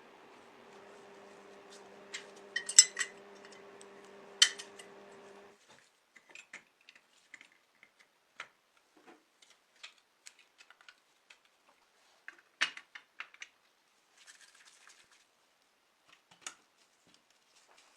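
Small metal parts clicking and tapping as they are handled, a sharp cluster of clicks about three seconds in and another near four and a half seconds. A steady low hum runs beneath and cuts off about five and a half seconds in, leaving only scattered light clicks.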